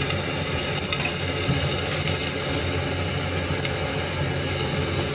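Chicken ham, tomato and a fried egg sizzling steadily in a frying pan under a glass lid, with a low steady hum underneath.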